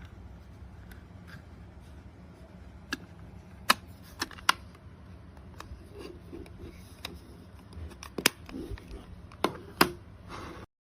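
Irregular sharp clicks and taps with some soft rustling, from a wireless keyboard leather case for iPad being handled, with a few louder snaps in the second half and a low steady hum underneath.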